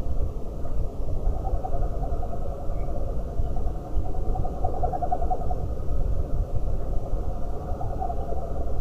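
Steady low rumble picked up by an outdoor CCTV camera's microphone at night, with an animal calling repeatedly in short trilling bouts.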